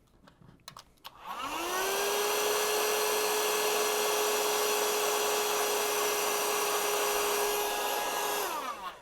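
A couple of clicks, then a heat gun switched on. Its fan motor spins up to a steady whine with a loud rush of hot air, runs for about seven seconds shrinking heat-shrink tubing over a shielded-cable termination, and winds down near the end.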